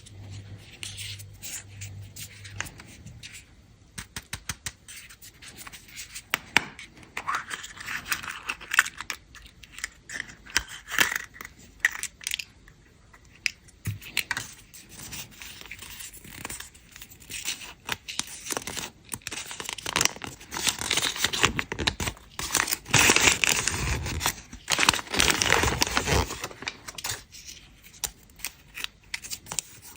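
Candy wrappers being torn open and crinkled by hand, with many small clicks and taps. The rustling comes in louder spells, the longest and loudest over several seconds in the second half.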